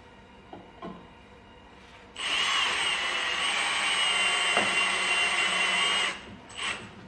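Cordless drill driving a 20 mm screw through a 4 mm hex bit to fasten a bracket, its motor running with a steady whine for about four seconds, starting about two seconds in and stopping suddenly. Light knocks come before it starts and again just after it stops.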